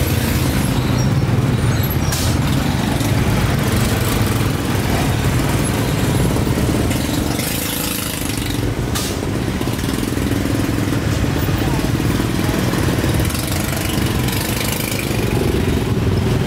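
Busy street traffic: motorbike, scooter and car engines running and passing close by in a steady low rumble.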